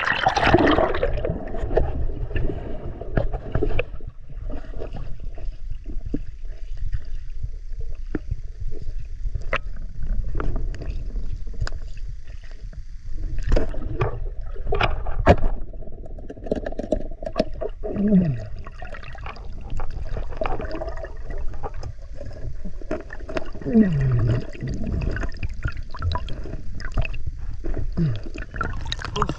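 Water gurgling and rushing around the microphone, muffled and low as on an underwater camera, with many scattered clicks and knocks and three short falling tones in the second half.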